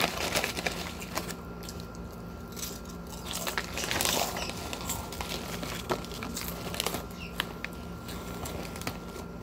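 Mike-sell's Groovy potato chip bag crinkling and rustling as it is handled, loudest at the start and again about four seconds in, with scattered crunching of chips being chewed.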